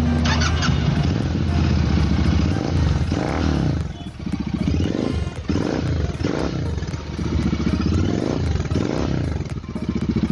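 Royal Enfield Interceptor 650's parallel-twin engine running through a Gursewak slip-on exhaust with its dB killer fitted: steady at first, then blipped over and over, the revs rising and falling in quick succession.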